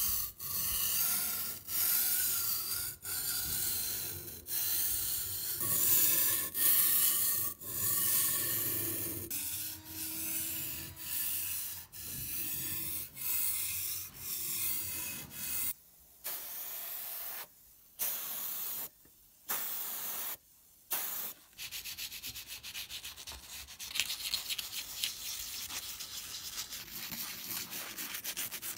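A curved steel slicer blade scraped in long strokes across a wet 400/1000 grit whetstone, about one stroke a second with short pauses. About two-thirds of the way through it gives way to quick, short back-and-forth strokes of wet sandpaper on a painted cast frame.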